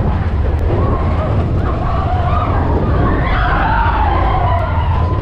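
Mine-train roller coaster running at speed: a loud, steady low rumble of the train on its track, with riders' wavering screams and whoops over it.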